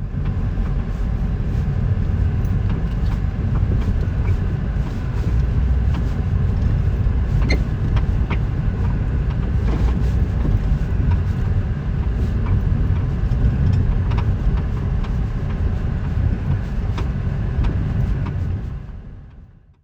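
Mazda 3 (BK) driving, with steady road rumble and knocks every few seconds from the rear-left suspension. The knocking is the rear shock absorber moving loosely because its upper mount has broken.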